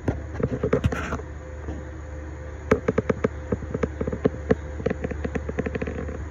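CNC milling machine clicking during its spindle-orientation sequence for a tool change, as the spindle is pulsed slowly until the pneumatic locking pin drops in. A short flurry of sharp clicks comes at the start, then after a pause a longer run of several clicks a second, over a steady machine hum.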